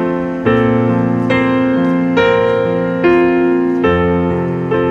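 Slow background piano music: sustained chords, a new one struck roughly every second.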